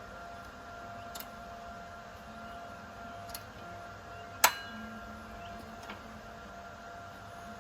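A steady high electrical hum, with a few light metal clicks and one sharp, ringing metallic clink about halfway through.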